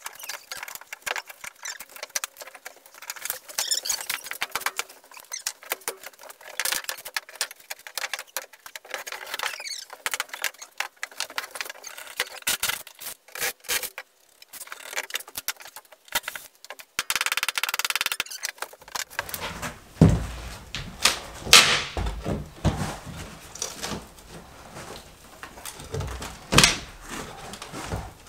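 Old mobile-home subfloor being pried up with a pry bar and claw hammer: a run of cracks, crunches and squeaks as the boards break apart and nails pull out, with one longer squeak about seventeen seconds in. Several heavy thumps follow in the last third.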